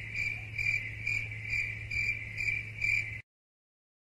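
Insect chirping, cricket-like, pulsing steadily about twice a second over a low steady hum; it cuts off abruptly near the end.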